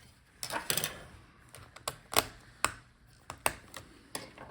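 Irregular sharp clicks and taps of laptop parts being handled, about eight in all.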